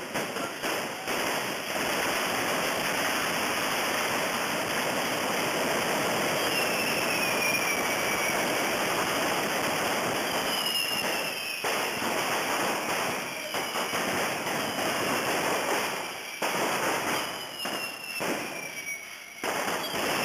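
Street fireworks going off continuously as a dense hissing crackle, with several whistles that fall in pitch. The sound dips briefly a few times in the second half.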